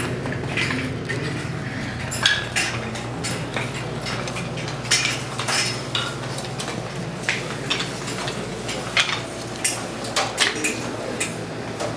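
Dishes and cutlery clinking: an irregular run of short, sharp clinks and knocks over a steady low hum.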